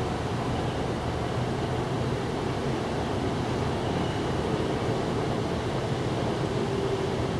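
Steady outdoor background noise, strongest in the low range, with no distinct events.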